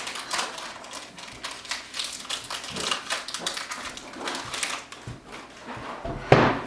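Pokémon trading cards and their opened foil pack being handled: rapid, irregular rustles and clicks as the cards are flipped through, with one louder knock about six seconds in.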